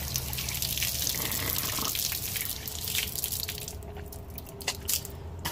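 Water running from an outdoor garden tap and splashing over a cupped hand. The flow eases off about three seconds in as the tap is turned off, leaving a few drips.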